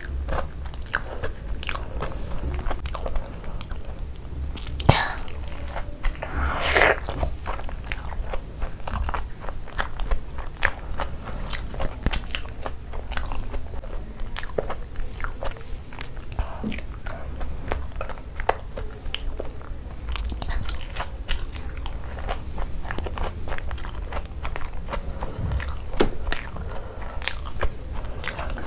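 Close-miked biting and chewing of Cheetos-crusted fried cheese balls, with many small crisp crunches of the coating throughout and a louder crunch about seven seconds in.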